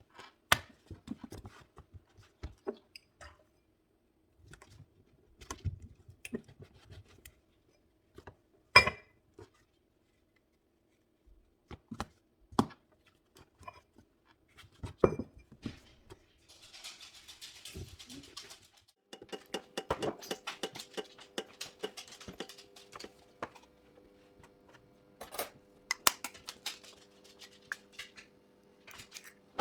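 Quiet kitchen handling sounds during breakfast preparation: scattered light clicks and knocks of dishes and utensils, a short hiss a little past the middle, then a faint steady hum under the clicks near the end.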